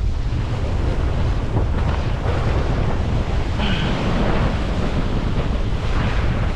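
Wind buffeting the microphone with a steady low rumble, over ocean surf washing on the shore.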